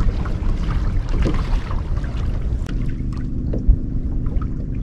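Wind noise on the microphone aboard a fishing boat, with a steady low hum from the boat's motor joining about three seconds in.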